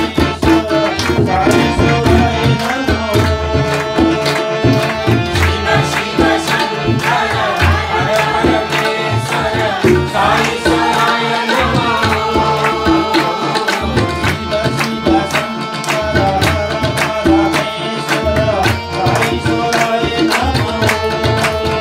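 Live Hindu devotional bhajan: tabla drumming a steady rhythm under an electronic keyboard and sung vocals through microphones, with voices joining in.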